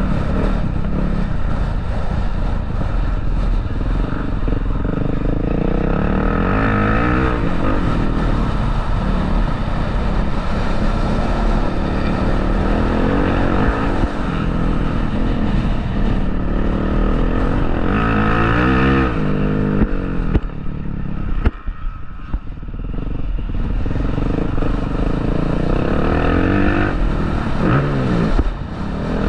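Motocross bike engine revving up and easing off over and over as it rides the track, its pitch rising sharply several times. About two-thirds of the way through, the engine note drops away for a couple of seconds.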